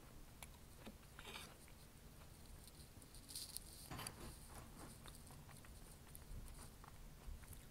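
Faint close-up eating sounds: a fork cutting into a slice of coconut cream pie and clicking against the plate, then a bite taken off the fork and quiet chewing, with small clicks and mouth smacks.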